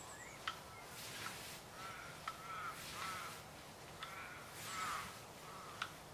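A 90 cm scythe blade swishing through lawn grass in quick strokes, about one every one and a half to two seconds, with a few sharp ticks between them. A bird calls repeatedly in the background.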